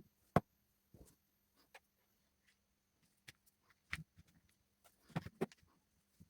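Irregular small clicks and taps of tools and small parts being handled during a smartphone repair, the loudest just after the start and a cluster around five seconds in.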